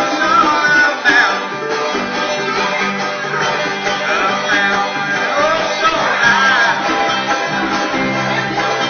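A live acoustic bluegrass string band playing a country tune: banjo, guitar, mandolin and upright bass.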